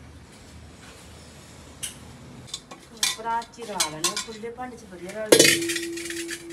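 Steel cooking pots and a large metal tray clinking and scraping against each other, with squeals that rise and fall as metal rubs on metal. About five seconds in a steel pot comes down with a sharp clank and keeps ringing with one steady tone.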